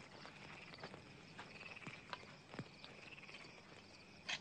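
Faint night ambience of insects, crickets chirping in a steady pulsing trill, with scattered light clicks and one sharper click near the end.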